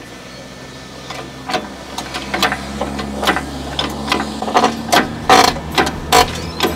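Irregular metallic clicks and creaks from a hydraulic engine crane and its chain as an engine is hoisted out of a car's engine bay, coming more often from about a second and a half in. A steady low hum runs underneath.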